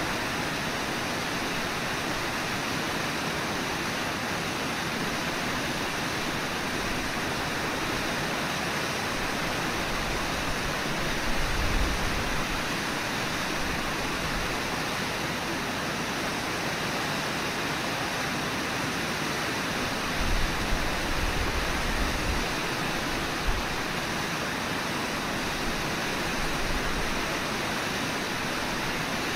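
Steady rush of river water from the Brooks River and Brooks Falls, an even hiss with no break. A few brief low rumbles rise over it about eleven seconds in and again around twenty to twenty-three seconds in.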